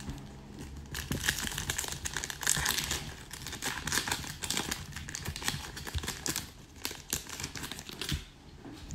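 Foil hockey card pack wrapper being torn open and crinkled by hand: a dense run of crackling that starts about a second in and fades near the end.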